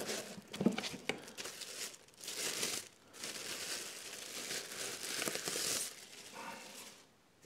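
Packaging crinkling and rustling as an amplifier is lifted out of its box and unwrapped, with a few light knocks at first; the rustling fades out near the end.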